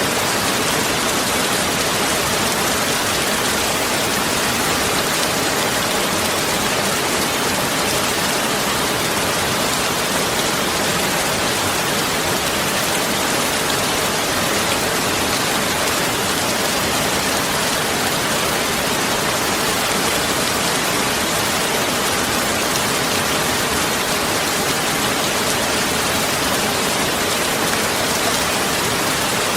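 Heavy rain falling steadily, a dense even hiss of drops with no breaks or separate hits.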